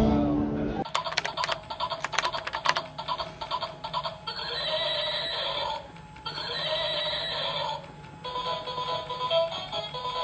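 A pop song cuts off about a second in. Then a battery-powered pink toy horse sounds off: a quick run of clicks, two electronic whinnies, and a tinny beeping tune.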